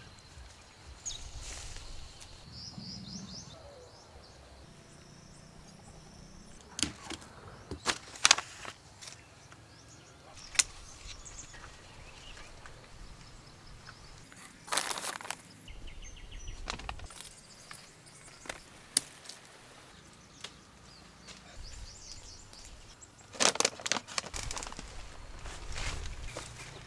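Quiet rural outdoor ambience with faint, scattered bird chirps and occasional sharp clicks and knocks, a few of which stand out clearly.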